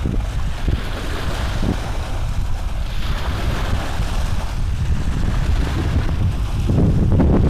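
Steady low rumbling noise on the microphone, growing louder near the end.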